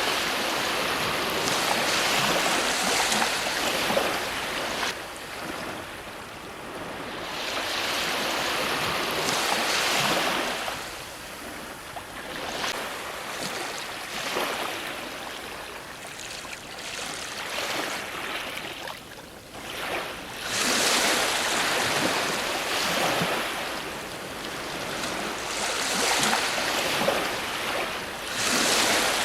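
Ocean surf breaking on a shore: a continuous wash of water that swells with each breaking wave and ebbs between them, every few seconds. The strongest breaks come at the start and again about twenty and twenty-six seconds in.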